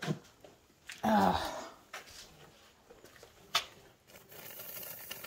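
Nearly empty can of expanding spray foam hissing faintly from about four seconds in, as only propellant comes out. Before it come a few sharp clicks and a short rough noise about a second in.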